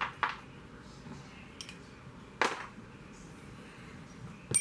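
Steel camshaft of a Land Rover 300Tdi knocking against its bores in the block as it is drawn out by hand: a few short knocks, the loudest about two and a half seconds in, and a sharp metal clink that rings on at the very end.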